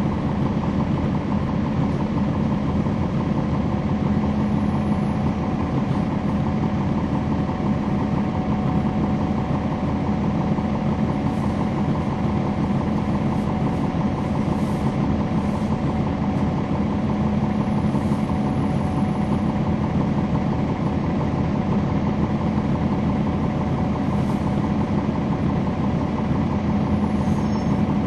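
Cummins ISL9 inline-six diesel engine of a 2011 NABI 416.15 (40-SFW) transit bus running steadily, heard from inside the bus, with a deep hum and a faint steady whine and no change in engine speed.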